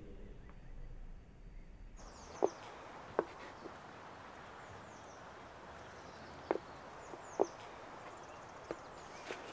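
After about two seconds of quiet room tone, outdoor ambience with birds chirping and a wooden plank knocking on the ground several times at irregular intervals as it tips back and forth across a log under a person's feet.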